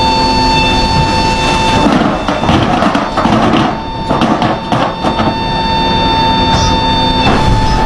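C-17 Globemaster aircraft noise: a steady, loud drone with a high, constant whine. Between about two and five seconds in, irregular bursts of noise and knocks sound over it.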